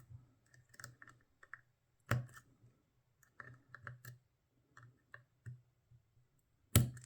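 Tubular lock being picked: irregular small metallic clicks as the pick and tension tool work around the pins, feeling for the binding ones. Two louder clicks stand out, one about two seconds in and one near the end.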